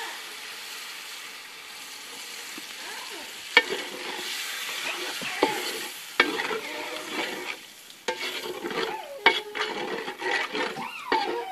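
Chicken stock poured into a hot metal pan of fried shallots and spice paste sizzles with a steady hiss. From about three and a half seconds in, a wooden spatula stirs the curry base, knocking and scraping against the pan, which rings briefly with each knock.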